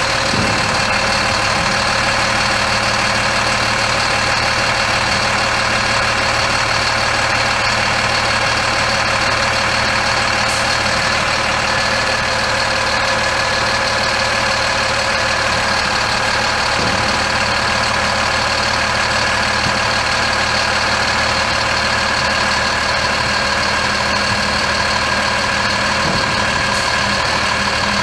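Mercedes-Benz MBE 900 7.2-litre inline-six turbo diesel of a Freightliner M2 106 crane truck running steadily, most likely at idle.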